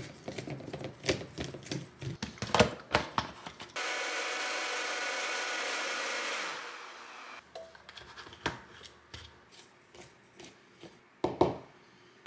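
Compact personal blender blending a fruit smoothie: clicks and knocks as the jar is handled and set on the base, then the motor runs steadily for about three seconds and winds down. More clicks and knocks follow as the jar is lifted off.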